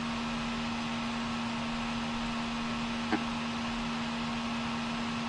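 Steady electrical hum at one pitch over a constant hiss: the background noise of an open phone line on which nobody is answering. One faint click about three seconds in.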